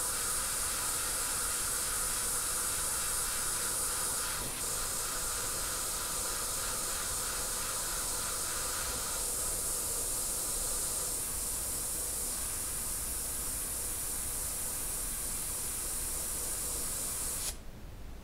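Airbrush spraying white paint, a steady hiss of air through the nozzle that cuts off suddenly near the end.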